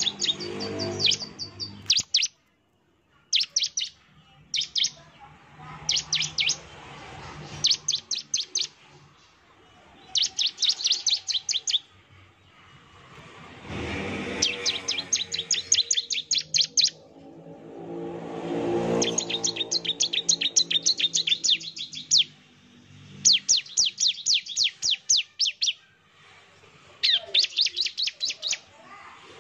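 Bar-winged prinia (ciblek) singing in its rapid "nembak" style: repeated bursts of fast, sharp, high chips, each burst about a second long with short pauses between. A low hum sits underneath around the middle.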